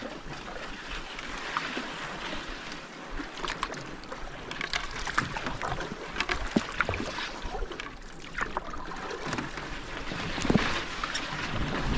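Canoe being paddled across a lake: irregular splashes and drips of water from the paddle blade over a steady wash of water.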